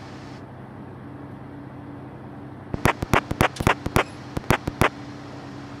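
Cessna 172's piston engine running steadily on final approach, heard from inside the cabin. About three seconds in comes a quick run of about a dozen sharp clicks over two seconds.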